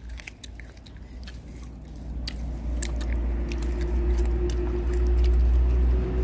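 Close-up biting and chewing of fruit pieces, with scattered crisp clicks and wet mouth sounds. From about halfway through, a motor vehicle's low rumble and steady hum grow louder and become the loudest sound.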